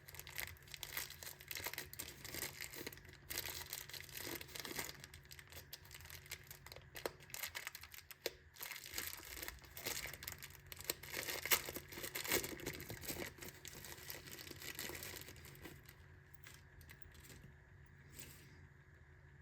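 Packaging being handled and torn open: dense crinkling, rustling and tearing with sharp crackles, thinning to a few scattered clicks before it stops near the end.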